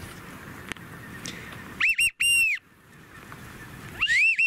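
Wigeon whistle call, blown loud and close: two sets of three whistled notes, two short and one longer, about two seconds apart, imitating the whistle of drake wigeon to call a flock in.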